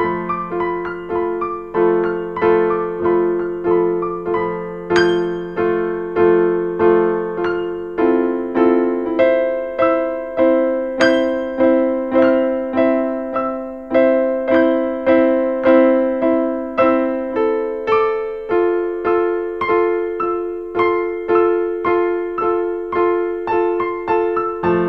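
Background music: a piano playing steady repeated chords, about two notes a second, with the harmony shifting every few seconds.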